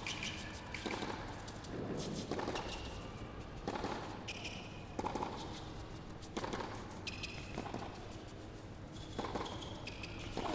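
Tennis rally: racket strokes on the ball about every second and a half, echoing in an indoor arena, with short squeaks of players' shoes on the court between the hits.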